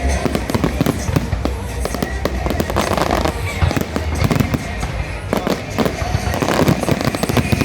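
Fireworks display: a dense, continuous barrage of rapid bangs and crackles with no break.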